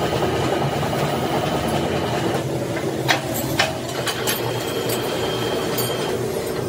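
Factory machinery running with a steady drone and a thin high whine, broken by a few sharp metallic clicks about three to four seconds in.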